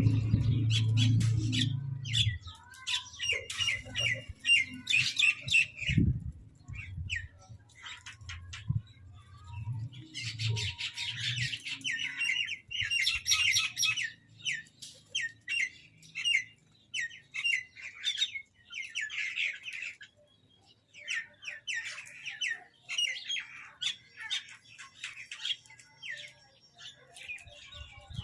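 Crows and mynahs squawking and chattering over food: bursts of rapid, harsh calls with short pauses between them. Low background music fades out about two seconds in.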